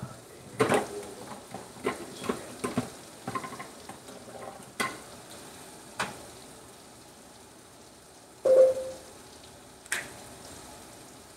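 Food sizzling steadily in a frying pan, with clicks and taps from seasoning jars being shaken and handled over the pan. A short ringing clink, the loudest sound, comes about eight and a half seconds in.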